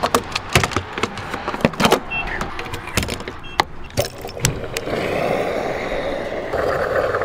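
Fuel filler cap and gas pump nozzle being handled, a series of sharp clicks and knocks. From about five seconds in, fuel runs from the pump nozzle into the vehicle's tank with a steady rushing sound.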